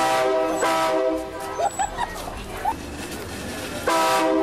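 Multi-tone train-style air horn blasting: a short blast, then a longer one right after, and another blast starting near the end, each a loud chord of several steady tones. A few short high chirps sound between the blasts.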